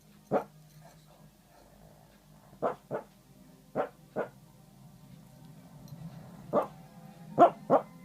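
Small dog barking in its sleep: eight short barks, mostly in quick pairs with pauses of a second or more between, the last pair the loudest.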